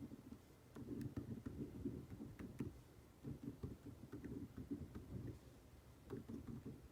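Gel pen writing on a paper notepad: faint, short scratchy strokes in irregular bursts, with a few small clicks.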